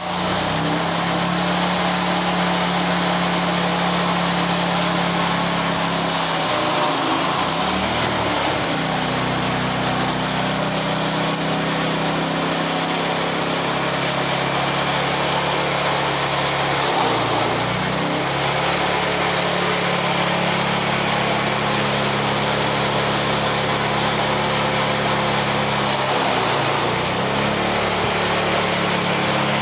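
Small engine-driven chaff cutter running steadily at speed while chopping dry elephant grass. About ten seconds apart, three times, the engine's pitch sags briefly and then recovers as bundles of grass are fed through the cutter.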